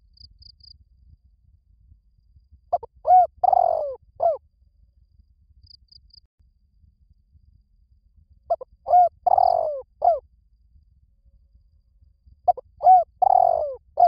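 Spotted dove cooing: three phrases, each a few short coos running into a longer drawn-out coo, repeated about every five seconds.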